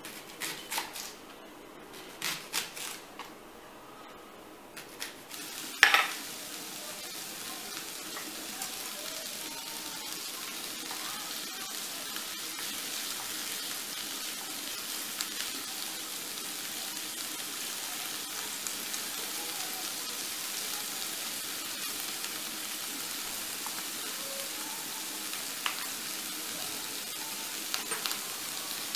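Chopped leeks sizzling as they fry in an open pan on a gas burner: a steady high hiss that starts right after a sharp knock about six seconds in. A few clicks of a knife against a plastic cutting board come in the first few seconds and again near the end.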